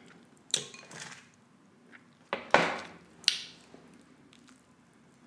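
A few sharp clicks and knocks of eating utensils against a plate, about half a second in, around two and a half seconds in and again soon after.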